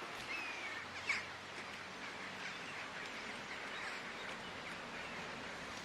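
Steady outdoor background noise with a few brief bird chirps near the start and a single sharp click about a second in.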